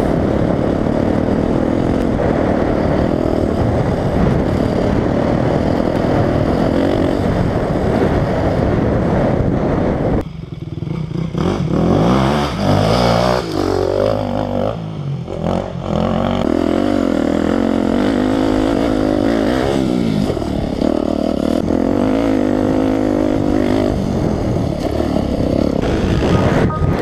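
Dirt bike engine heard from on the bike itself, running under throttle over rough ground. About ten seconds in the revs drop sharply, then swing up and down quickly for a few seconds before settling back to steady running.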